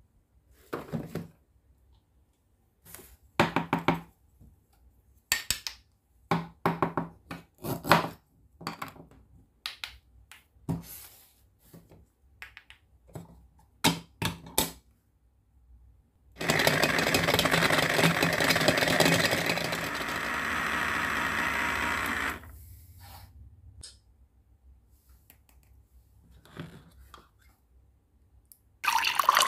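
Toy fruit pieces knocking and clattering as they are dropped into a toy blender's plastic jar. Then the toy blender's small motor whirs steadily for about six seconds, dropping a little in level partway through. Near the end, liquid starts to pour.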